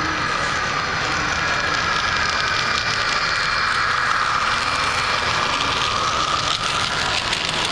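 HO scale model diesel locomotives and freight cars rolling past on the track: a steady whirring whine from the motors and gears over a rattle of wheels on rail.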